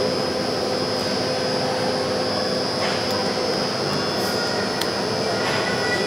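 Overhead travelling crane running as it carries a lifted railway car body: a steady machine hum with a constant high whine.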